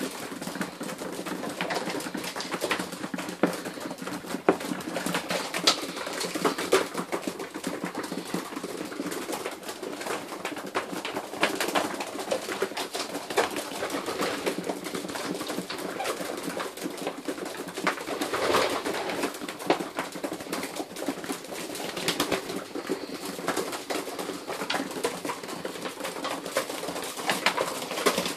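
A group of pigeons cooing continuously in a small loft, with many short clicks and taps as the birds move and peck on the floor.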